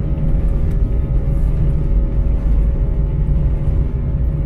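Airbus A320-200 jet engines and the rumble of the wheels on the runway, heard from inside the cabin as the airliner rolls fast along the runway. A steady low rumble with a few steady tones above it.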